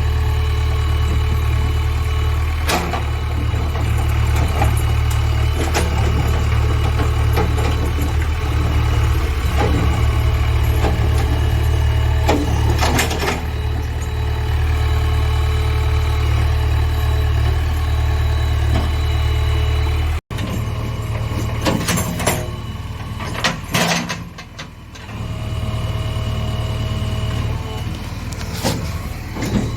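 Backhoe loader's diesel engine running steadily, with scattered metallic clanks and knocks. About twenty seconds in the sound cuts off for an instant, and after that the engine is quieter and several sharper knocks stand out.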